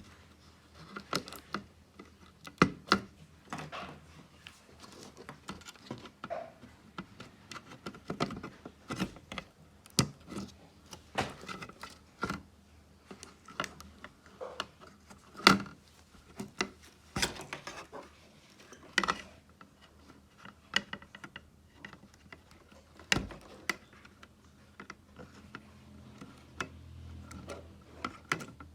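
Irregular clicks, taps and knocks of hard plastic and metal parts being handled, a few of them sharp and loud, as a TV motherboard is worked on by hand.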